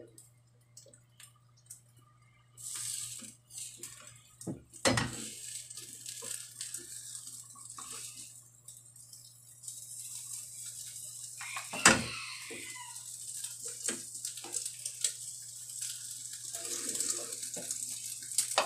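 Slotted spatula scraping and knocking against a frying pan as an omelette is turned and folded, with one sharp knock about twelve seconds in. Under it the egg sizzles faintly, growing more noticeable in the second half, over a low steady hum.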